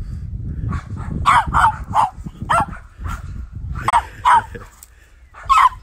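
A Pomeranian yapping: a string of about eight short, sharp, high-pitched yaps in irregular bunches, the loudest near the end.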